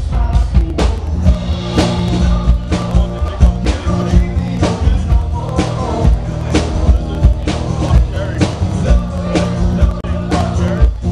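Live rock band playing loud through a PA: drums keeping a steady beat under electric guitar, with a man singing.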